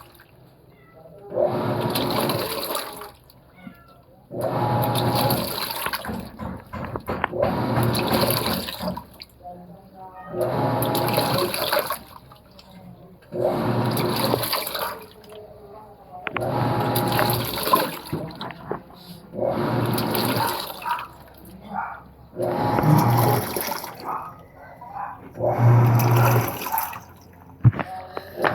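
Panasonic washing machine on its blanket program agitating a load in water: churning, sloshing strokes of about two seconds with a low motor hum, broken by short pauses, repeating roughly every three seconds.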